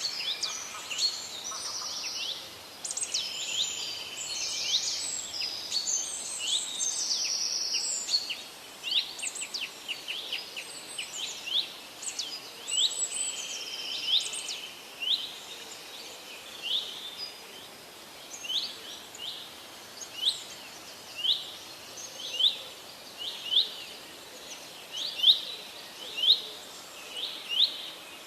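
Several songbirds singing and calling together, a dense tangle of overlapping chirps and warbles through the first half; after that one bird dominates with short, sharp, sweeping notes repeated about once a second, over a faint steady outdoor hiss.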